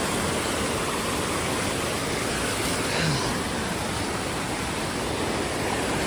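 Small waterfall cascading over rocks into a stream: a steady, strong rush of water pouring with force.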